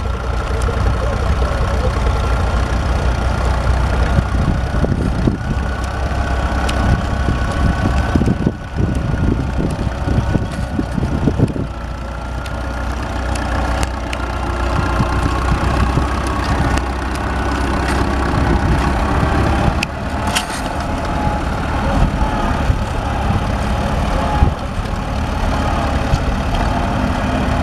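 Standard Fordson tractor's four-cylinder engine running steadily, with a few brief knocks.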